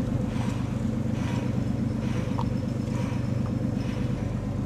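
An engine running steadily at low revs, an even low drone.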